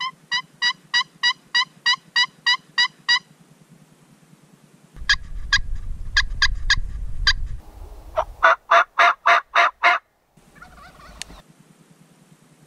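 Pot-style friction turkey call, a striker drawn across its surface, making hen yelps in three runs: a steady run of about a dozen yelps, a shorter run of about seven after a pause, then a faster, louder run near the end.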